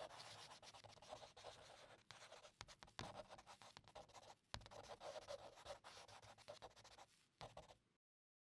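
Faint scratchy rubbing with scattered sharp clicks, cutting off abruptly near the end.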